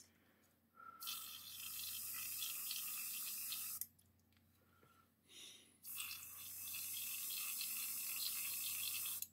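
Gravity-feed airbrush spraying paint in two long hisses of about three seconds each, with a thin whistle that starts just before each hiss and runs under it.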